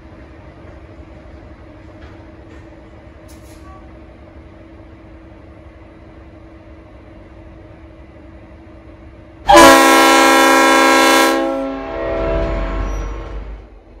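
Diesel locomotive idling with a steady hum, then its Leslie RS5T five-chime air horn sounds one loud chord blast about two seconds long, starting about nine and a half seconds in. A low rumble follows for a couple of seconds as the blast dies away.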